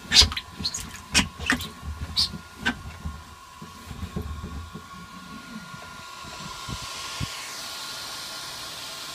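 Hot water splashing and sloshing inside a polyethylene kayak hull as a hand pushes and rubs outward against the dent from within, with sharp, irregular splashes over the first few seconds. From about six seconds in, a steady hiss takes over.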